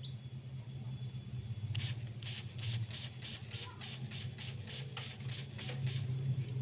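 Trigger spray bottle pumped in a quick run of sprays, about three or four a second, misting water into a bird cage to bathe the bird. The sprays start about two seconds in and stop near the end, over a steady low hum.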